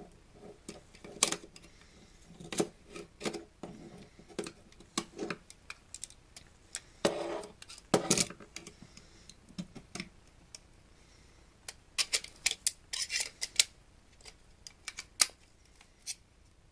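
Hard plastic housing and circuit-board pieces of a TV antenna unit being handled and opened up: irregular clicks, knocks and rattles. There are a couple of short scrapes near the middle and a quick run of clicks about twelve seconds in.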